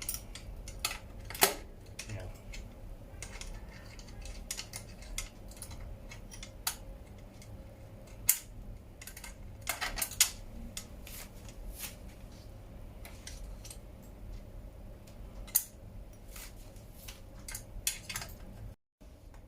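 Scattered metallic clicks and clinks of hand tools on bicycle parts as a front derailleur is unbolted and taken off the frame.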